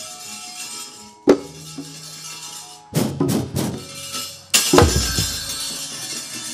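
Gamelan percussion for a wayang kulit battle: the dalang's keprak metal plates clattering and cempala knocks on the wooden puppet chest over faint sustained gamelan tones. There is a sharp knock about a second in, a quick cluster of three or four strikes around three seconds, and a heavy strike with a deep boom after four and a half seconds.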